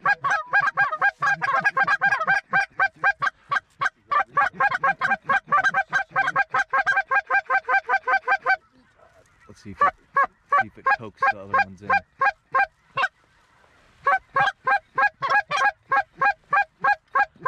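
Hand-blown goose call sounding rapid, high cackling-goose clucks at several a second, close and loud, to lure in an approaching goose. The calling breaks off about halfway through, then starts again and pauses once more before running on.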